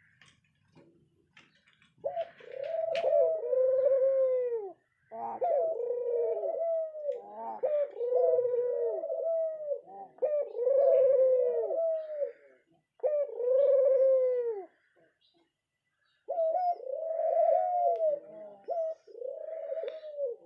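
Pet dove cooing: a series of repeated coos, each rising and then falling in pitch, beginning about two seconds in, with a short pause about three-quarters of the way through before the cooing resumes.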